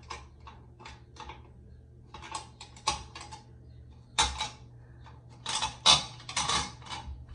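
A metal shower valve trim plate and its long mounting screws clicking, tapping and scraping against the tile and valve body as the plate is shifted around and the screws are probed for their hidden holes. The clicks come irregularly, the loudest clusters about four seconds in and again in the second half.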